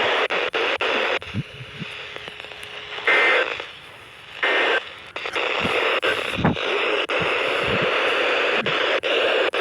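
Weather radio receiver hissing with static, broken by sharp clicks and short dropouts, with two louder bursts of static about three and four and a half seconds in.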